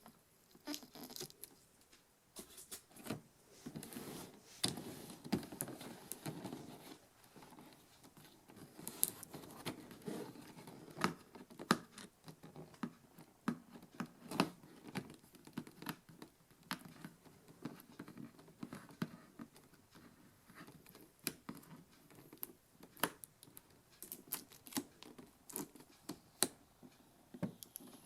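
Figure packaging being handled and opened by hand: tearing, cardboard and plastic rustling and crinkling, with many sharp clicks and taps throughout.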